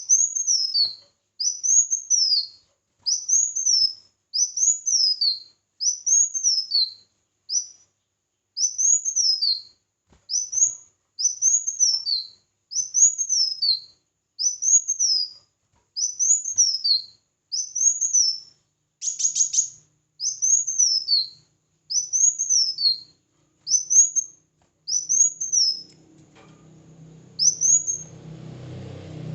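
A songbird repeating the same high, arching call, each rising then falling and about half a second long, roughly once every second and a bit; a brief burst of short rapid notes breaks in about two-thirds of the way through. Near the end a low rumbling background comes in under the calls.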